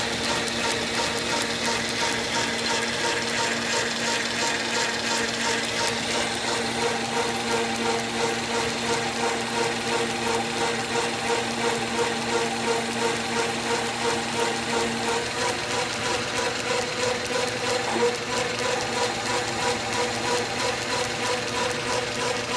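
South Bend metal lathe running under power, its flat belt drive and gear train giving a steady whir with a regular pulsing beat; about two-thirds of the way through, a lower hum drops out and the sound changes slightly.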